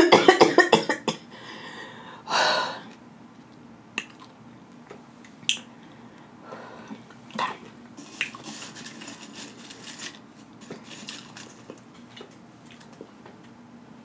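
Close-up mouth smacking and chewing, with a quick run of wet clicks at the start and a short noisy breath a couple of seconds in. Later, fingers pick through tortilla chips in a glass bowl with light rustles and clicks against the glass.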